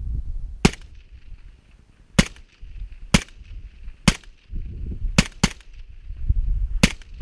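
Suppressed AK rifle fitted with a Dead Air Wolverine PBS-1 suppressor firing seven semi-automatic shots, roughly one a second, with two in quick succession just past five seconds. A low rumble fills the gaps between shots.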